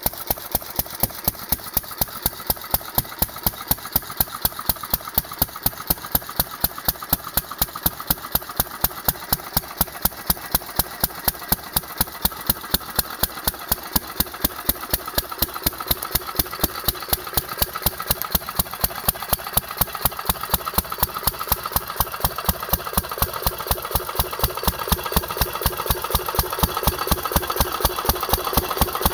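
1929 Hercules-built Economy model XK single-cylinder stationary engine running with a steady, even exhaust beat, firing on every cycle as a throttle-governed engine does rather than hitting and missing. It is running okay with its ignition timing set about halfway right.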